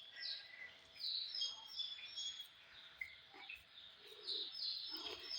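A bird chirping in the background: a steady run of short, high chirps, about two or three a second.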